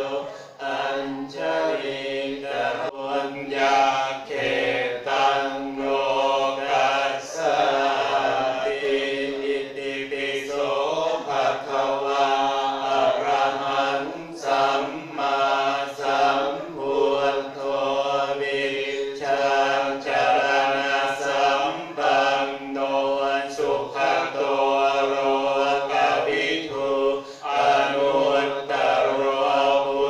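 Many voices chanting Buddhist Pali verses together in a steady, even recitation, pausing briefly for breath now and then.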